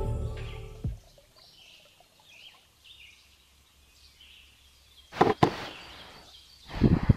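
Music fades out in the first second, leaving faint bird chirps. About five seconds in, a laptop is set down on a plastic cooler lid with a double knock, and there is a second knock near the end.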